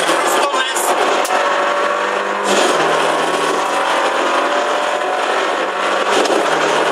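Car engine running steadily while driving, heard from inside the cabin along with road and wind noise; the sound shifts briefly about two and a half seconds in.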